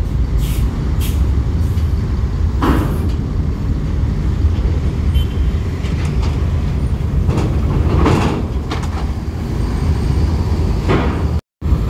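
Mercedes-Benz OH 1626 coach's rear-mounted diesel engine running with a steady low rumble as the bus drives slowly past and away, with a few brief rushes of noise over it. The sound cuts out for a moment near the end.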